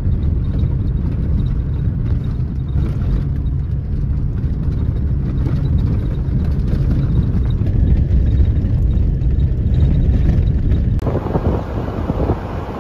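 Car driving over a rough gravel track: a steady low rumble of engine and tyres heard from inside. About eleven seconds in it cuts abruptly to wind rushing over the microphone as the car drives on.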